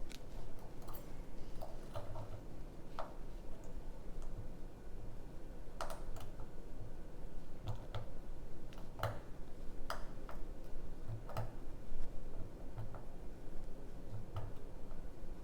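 Irregular light clicks and ticks of a lock pick working the pins of a six-pin pin-tumbler lock.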